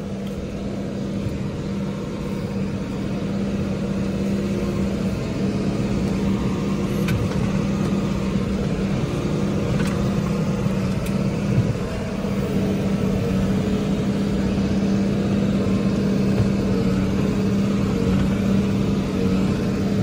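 New Holland tractor's diesel engine running steadily as the tractor drives through the field, heard from inside the cab as an even drone with a strong low hum. It grows a little louder over the first few seconds.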